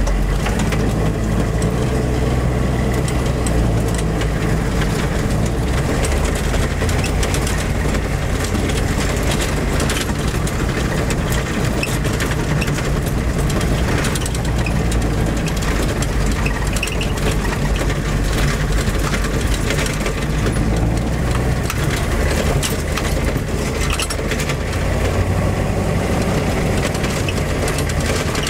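Humvee's diesel engine and drivetrain running while driving, heard from inside the cab: a steady low drone with frequent light rattles and clicks.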